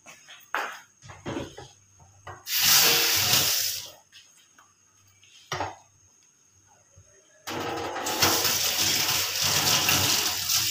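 Kitchen tap running into a stainless steel sink while a wooden spatula is rinsed under the stream. After a few light knocks, the water runs for about a second and a half, stops, then comes on again steadily about seven and a half seconds in.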